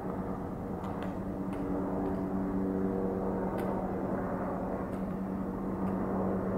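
A steady, low engine drone holding one pitch, over a faint rushing background.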